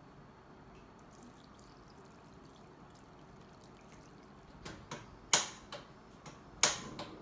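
Water poured from a small pot into a frying pan of dry instant noodles, a faint trickle, followed by a run of sharp clicks, the two loudest about a second apart near the end.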